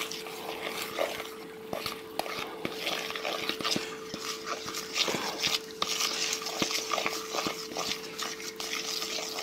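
Thick chocolate cake batter being folded and stirred in a mixing bowl: irregular wet scraping and squelching of the utensil through the batter and against the bowl, over a faint steady hum.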